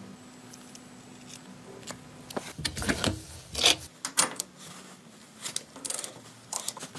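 A socket and ratchet wrench on a rusted bolt. After a quiet start there is a string of irregular metal clicks and clanks, about a dozen, as the tool is fitted and turned.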